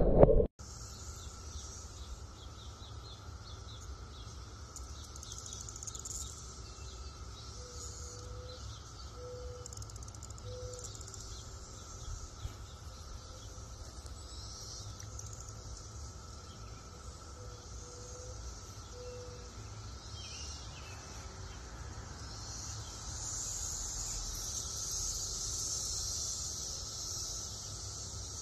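Quiet outdoor ambience: a steady low rumble under a faint high hiss and steady high tone like insects, swelling a little near the end. A bird gives two sets of three short, low, hooting notes. The snake makes no sound of its own; a brief loud burst of wind and water noise cuts off just after the start.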